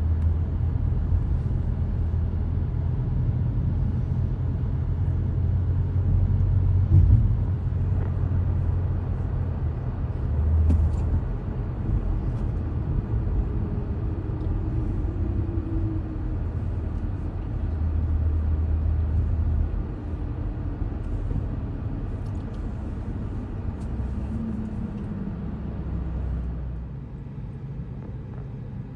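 Road and engine rumble inside a moving car's cabin, a steady low drone with one brief knock about a quarter of the way in. The rumble drops off near the end as the car slows.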